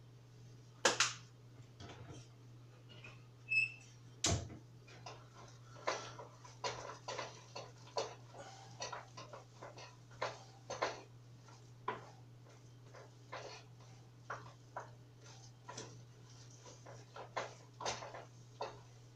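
Kitchen clatter: irregular knocks, clicks and clinks of utensils and kitchenware being handled on a counter, with two sharper knocks about a second in and around four seconds, over a steady low hum.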